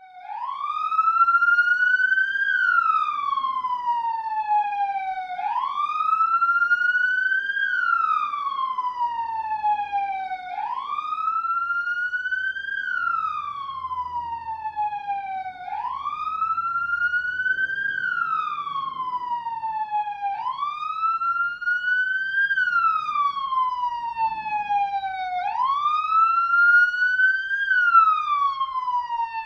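Police siren sounding a slow wail: the pitch climbs quickly, then falls away more slowly, the cycle repeating about every five seconds.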